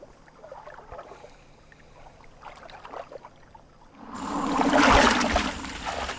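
Faint underwater stirring, then about four seconds in a loud splash and rustle of water and floating plants as a shoebill plunges its beak into the swamp after a lungfish. The sound swells for about a second, then tails off.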